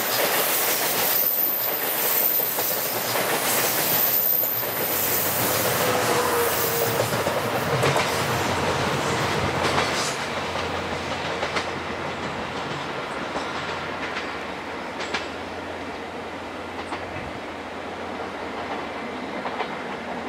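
Salon Car Naniwa passenger coaches rolling past close by, their wheels clattering over the rail joints. About ten seconds in the last coach has gone by and the clatter fades as the train moves away.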